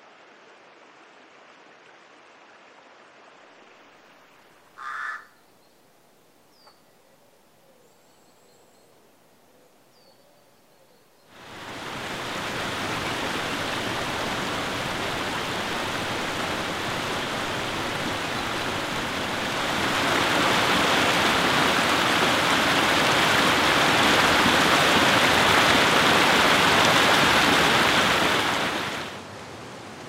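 Flowing water: at first a faint creek hiss with one short sharp high sound about five seconds in and a few faint chirps. Then, about eleven seconds in, a waterfall's steady rush starts suddenly. It grows louder around twenty seconds in and falls away sharply just before the end.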